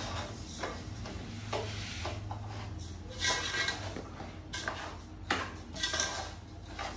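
Sugar tipped into a metal pot, then a long metal spoon stirring and scraping it through ghee around the pot, with irregular scrapes and clinks against the pot over a steady low hum.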